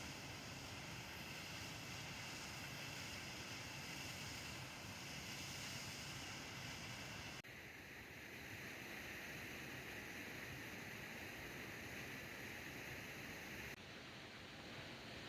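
Steady rushing noise with no voices, whose tone changes abruptly twice, about halfway through and near the end.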